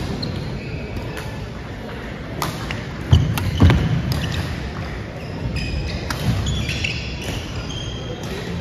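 A badminton rally on a wooden gym floor: sharp racket hits on the shuttlecock and heavy footfalls, loudest about three and a half seconds in, then short shoe squeaks in the second half, all echoing in the large hall.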